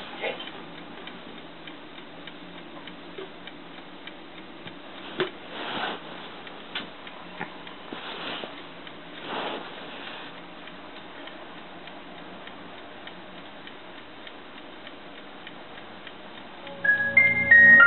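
Soft, irregular clicks and ticks with a few brief whooshing swells as the touchscreen car computer is tapped through to start a DVD. About a second before the end, the DVD starts and louder piano music begins.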